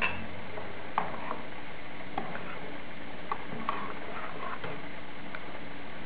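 Wire hand whisk stirring a runny egg, sugar, milk and oil batter in a plastic bowl, its wires clicking lightly against the bowl at irregular moments over a steady background hiss.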